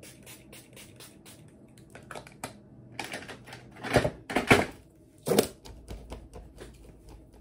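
Rapid spritzes of a pump spray bottle misting the face, about four or five pumps a second, in two runs. Between them come a few louder rustling thumps from handling.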